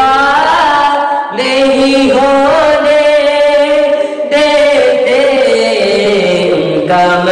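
Male voice singing a naat, an Urdu devotional chant, drawing out long held notes with wavering ornaments between the words of the refrain.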